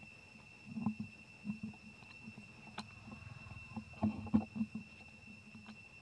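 Outdoor ambience: a steady high-pitched drone with a fainter, higher tone above it, under scattered soft rustles and thumps, which bunch together and are loudest about four seconds in.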